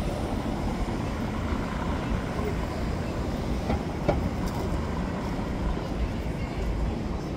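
City ambience heard on a walk: a steady low rumble, with a few short sharp clicks about four seconds in.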